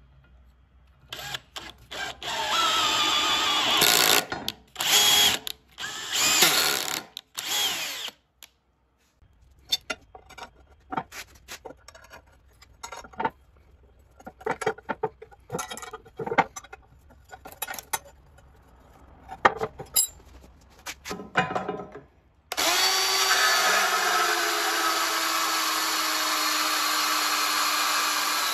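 A power drill runs in several short bursts, driving a thread tap into holes in an aluminum casting. Then comes a long run of sharp clicks and knocks from a ratchet wrench tightening bolts. From about three-quarters of the way in, a DeWalt 20V cordless band saw runs steadily, its pitch slowly falling as it cuts through a galvanized steel bar.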